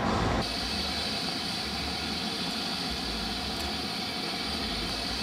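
Steam locomotive venting steam: a steady, loud hiss without any chuffing rhythm, a little louder for the first half second.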